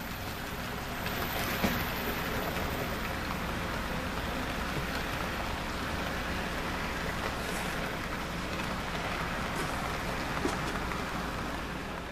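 Model freight train rolling steadily past on its track: an even rumbling hiss of wheels on rails over a low steady hum, with a few small clicks.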